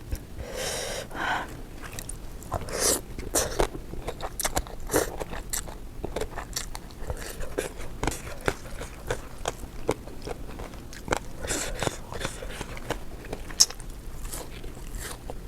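A person chewing food close to the microphone, with many short, irregular crunches and mouth clicks.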